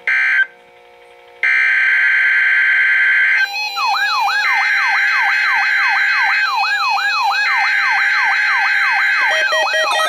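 Midland S.A.M.E. weather alert radio sounding its electronic alert alarm on receiving a NOAA Required Weekly Test. A short beep is followed about a second later by a steady high tone. From about three and a half seconds, a warbling siren-like sweep repeats about twice a second, alternating with the steady tone.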